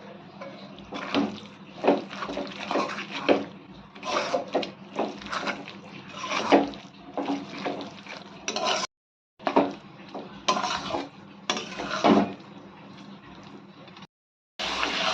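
Metal spatula scraping and knocking against a cooking pan while mutton keema is stirred and fried in spice masala, in irregular strokes, with a faint sizzle beneath. The sound cuts out abruptly twice.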